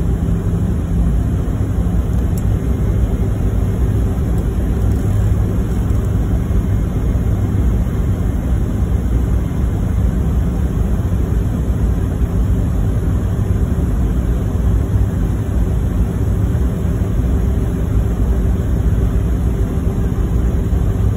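Steady rumble of an airliner's engines and rushing air, heard from inside the passenger cabin, with a constant low drone under it.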